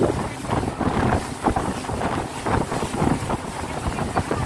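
Speedboat under way, wind buffeting the microphone in uneven gusts over the boat's running engine.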